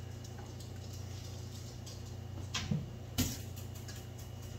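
Spoon hollowing out baked red potato halves and knocking the scooped flesh into a bowl: a few light taps about two and a half to three seconds in, over a steady low hum.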